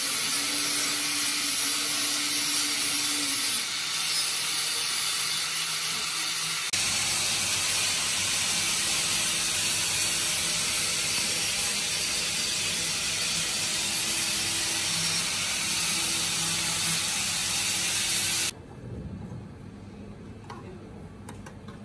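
Angle grinder grinding the edge of a metal plate held in a vise, filing it down to fit: a steady harsh hiss over the motor's whine that goes on for a long stretch, then cuts off suddenly near the end. A few light clicks follow.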